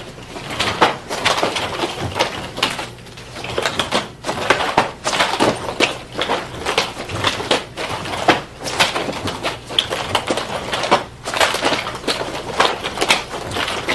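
Chain nunchaku swung through a run of side, front and cross strikes: quick swishes through the air mixed with clacks and rattles as the chain snaps taut and the handles are caught, a few each second in an uneven rhythm.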